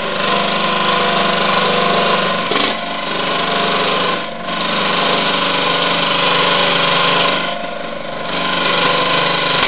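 Proxxon DSH scroll saw running and cutting 2 mm aluminium sheet: a steady motor hum under the blade's hissing rasp through the metal. The rasp eases off briefly three times.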